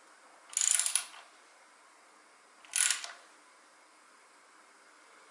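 Ratchet wrench clicking in two short bursts, about a second in and again near the middle, while the engine-mount nuts of a motorcycle frame are run down.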